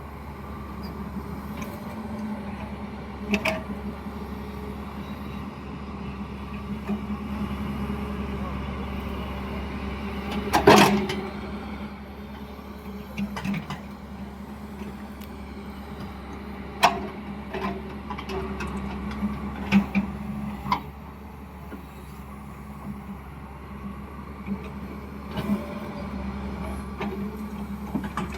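Digger's diesel engine running steadily during excavation, with scattered sharp knocks and clanks, the loudest about eleven seconds in.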